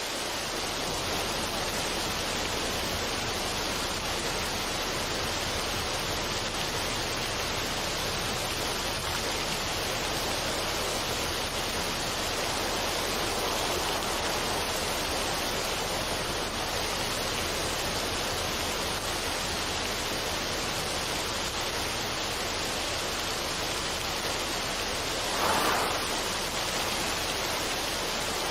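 Steady, even rushing noise of falling water, with one brief louder swell near the end.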